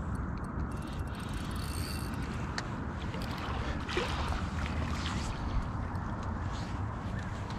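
Wind rumbling on the microphone while a spinning reel is wound in against a hooked estuary perch, with scattered faint clicks and a brief louder rush about four seconds in.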